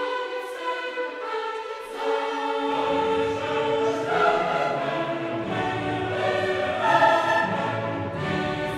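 Background choral music with orchestra, a choir singing held chords; deeper parts come in about two and a half seconds in and the music grows fuller.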